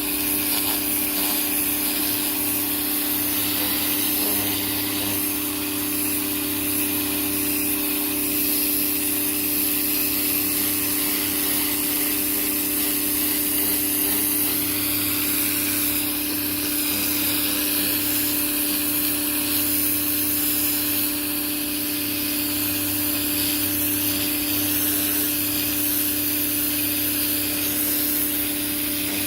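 Greenworks 1600 psi electric pressure washer running continuously, its motor and pump giving a steady hum under the hiss of the turbo nozzle's water jet.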